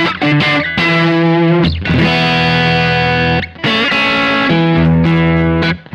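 Electric guitar with Häussel TE Broad Tele-style pickups in a Strat-shaped body, playing a run of chords that are struck and left to ring about two seconds each, with brief breaks between them.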